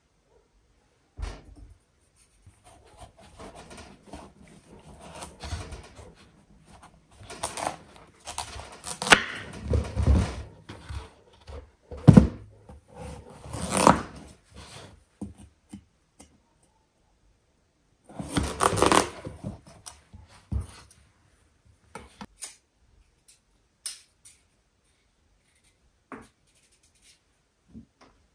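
Irregular handling noises of food preparation: scattered knocks and clicks, a few dull thumps, and two longer stretches of scraping or rustling about halfway through. The sounds thin out to occasional clicks near the end.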